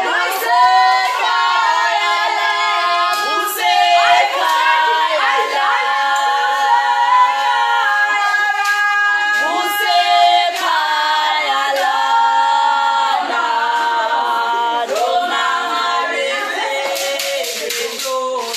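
A group of women singing together, with sharp hand claps among the voices.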